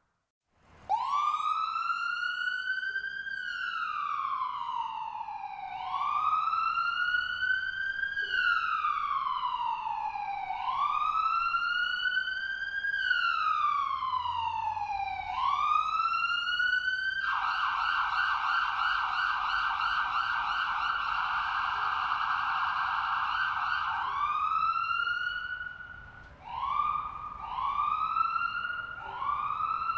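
Ambulance siren wailing, starting just under a second in: the tone climbs quickly and then slides back down, repeating about every two and a half seconds. Past the halfway point it switches for several seconds to a fast warble, then goes back to shorter rise-and-fall wails.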